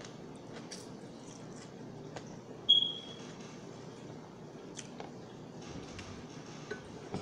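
Metal fork clicking and scraping against a plastic tub while eating, with one sharp ringing clink about two and a half seconds in.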